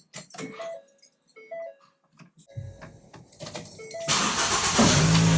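2011 Ford Escape being started: a few clicks and short chime beeps, then the starter cranking for a second or so before the engine catches about four seconds in with a loud rush and settles into a steady idle.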